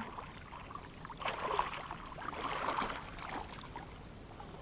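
Water splashing in irregular bursts as a big hooked catfish thrashes at the surface while being landed.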